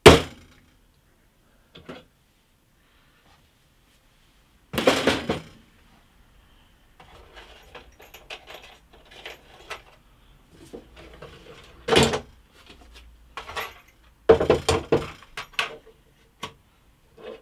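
A hammer strikes a drill bit once, sharply, at the very start; the bit is being used as a makeshift centre punch to mark a screw hole in wood. Then come clattering knocks of wood and metal: one about five seconds in, one about twelve seconds in, and a quick run of them near the end, with softer scraping in between. These come from a wooden drawer and its metal drawer runner being handled and set down on the workbench.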